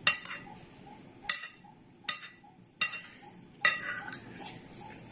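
Cutlery clinking against a dish while eating fried rice: five sharp, ringing strikes spread over about four seconds. A faint, even ticking runs underneath.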